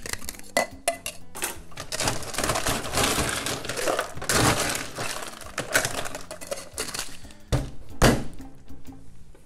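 Ice cubes clattering into a metal cocktail shaker tin for several seconds, then two sharp knocks about half a second apart as the shaker tins are pressed and tapped shut.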